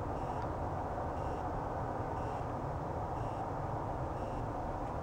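Faint electronic beeping, one short high beep about once a second, over steady background noise.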